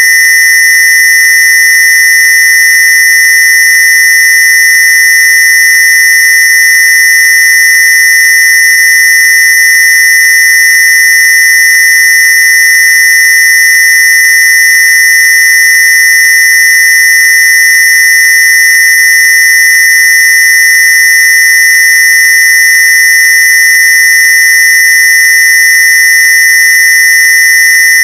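Synthesized square-wave tone, a Rife/AWG frequency, held steady and unchanging: a loud, high-pitched electronic buzz.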